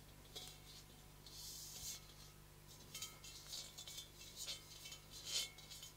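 Hands handling a 25 cm hand-forged singing bowl, turning and gripping it: a series of soft brushing and scraping sounds of skin on the metal, with a faint ring from the bowl lingering underneath.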